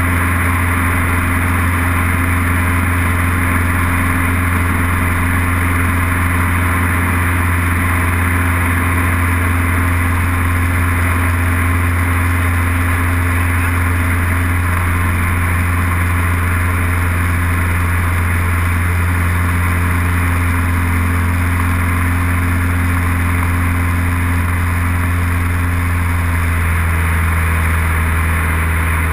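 Light aircraft's piston engine and propeller droning steadily as heard inside the cockpit in cruise flight, with a slight change in tone near the end.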